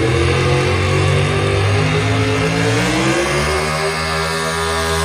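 Pulling pickup truck's engine at full throttle, dragging a weight-transfer sled down the track; the engine's pitch climbs steeply about three seconds in and then holds at very high revs.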